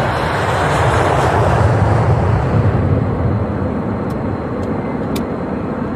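Jet airliner engine noise, a heavy rumbling roar that swells to a peak about two seconds in and then slowly fades.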